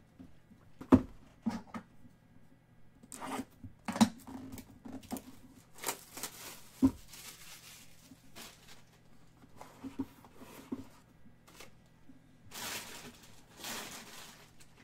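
Trading-card break on a tabletop: cased cards and a Topps Triple Threads box set down with a few sharp knocks, the loudest about a second in and about four seconds in. Between the knocks comes the tearing and crinkling of plastic wrap, longest near the end.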